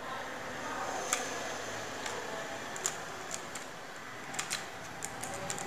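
Small clicks and rattles of a tripod's plastic phone-holder clamp being handled and fitted onto the pan head: scattered sharp clicks, several close together in the second half.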